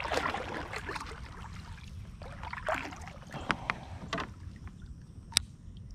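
Kayak paddle strokes splashing in the water, two strokes a little over two seconds apart, with a few sharp knocks, the loudest about five seconds in.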